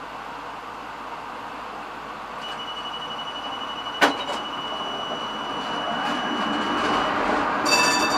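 A vintage tram rolling past on the curve of the next track, its running noise growing louder as it nears, with a thin high steady tone over the middle of the pass and one sharp click about halfway through. A ringing cluster of high tones comes in near the end.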